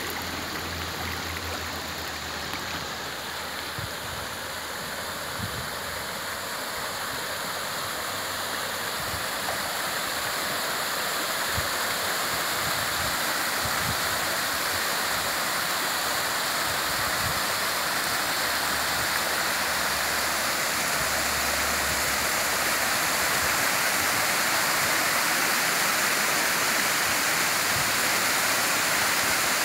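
Small waterfall spilling in many thin streams over a rock bank into a shallow stream: a steady rush and splash of falling water that grows gradually louder.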